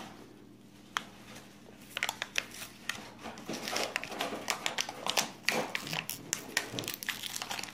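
Hands handling AA batteries and a plastic toy's battery compartment: a sharp click about a second in, then a run of irregular small clicks, taps and light rattles.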